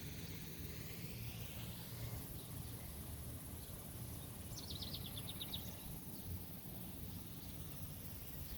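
Quiet outdoor ambience: a steady low rumble, with one brief, rapid, high-pitched trill of about ten chirps a little after halfway.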